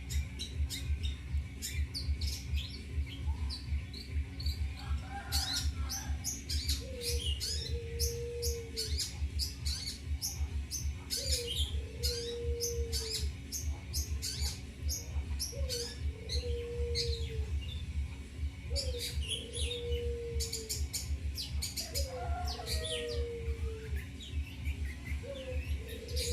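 Long-tailed shrike (cendet) calling with rapid, sharp chirps and chatter. Under it, a low held note comes back about every four seconds, over a steady low hum.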